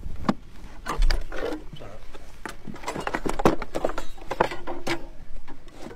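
Metal latches on a wooden ammunition crate being unclipped and the lid handled and opened: a string of sharp clicks, knocks and wooden clunks.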